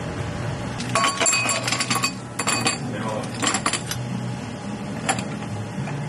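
Ice cubes dropped into a glass, clinking and ringing in several bursts, the longest and loudest about a second in, with a last single clink near the end.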